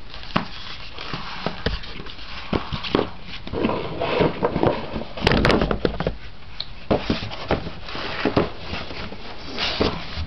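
Handling noise of a cardboard box and its foam insert being moved and picked up: irregular knocks, scrapes and rustles, with a cluster of louder knocks about five seconds in.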